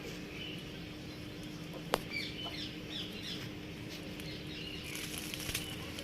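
Small birds chirping in many short, high calls, with a single sharp click about two seconds in, over a steady low hum.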